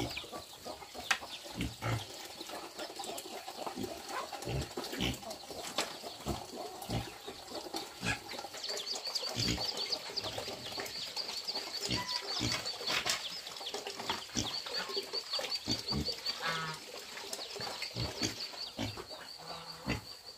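Chickens clucking and moving about, with many short knocks and taps; a high pulsing trill joins about nine seconds in.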